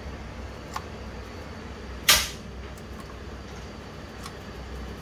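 Handling noise from an open power inverter on a workbench: a few faint clicks and one sharp clack about two seconds in, over a steady low hum.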